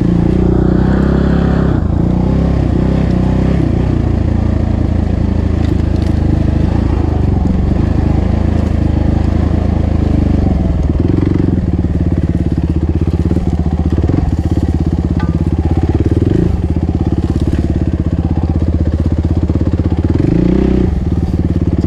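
Suzuki RMX450Z's single-cylinder four-stroke engine running at low revs while the bike is ridden slowly, the revs rising and falling briefly several times with the throttle.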